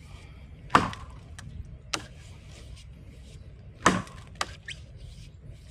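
Felling axe chopping into wood: two heavy strikes about three seconds apart, each followed by a lighter knock.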